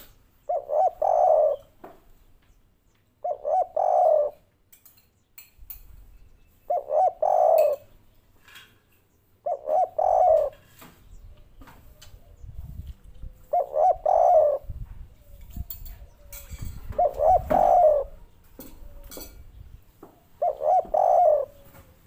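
Spotted dove cooing: seven phrases, one every three to four seconds, each a quick run of short notes ending in a longer note. This is the three-note 'kuk 3' song prized by Indonesian dove keepers.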